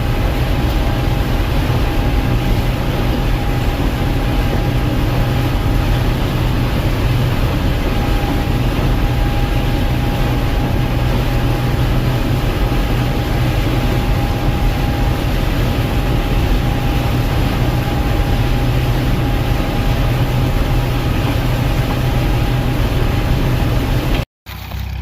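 Gleaner M2 combine running steadily while harvesting corn: a constant engine drone with a steady high whine over it. It cuts off abruptly near the end.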